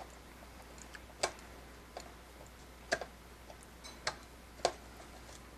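A hand screwdriver working at tight screws in the soldering station's plastic case: several sharp clicks and ticks at irregular intervals, about five in all.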